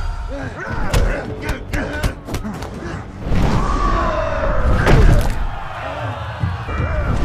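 Movie fight sound effects: a run of punch and body thuds, then a heavy slam of a body hitting the ring canvas about five seconds in, with fighters' shouts and grunts over a music score.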